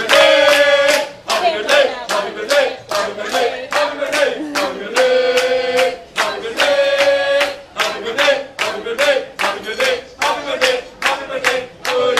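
A group of voices singing a birthday song together, with long held notes, while hands clap a steady beat about three times a second.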